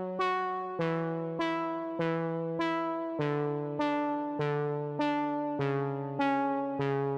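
Background music: a keyboard or synth plays evenly spaced notes, a bit under two a second, each starting sharply and fading, over a bass that steps lower about three seconds in and again near six seconds.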